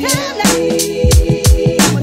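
Background music: a hip-hop/Afrobeat-style track with a heavy kick drum and a gliding melodic line over sustained tones.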